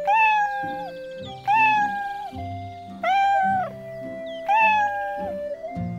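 Cartoon lynx cub crying in four drawn-out, cat-like mews about a second and a half apart, over soft background music.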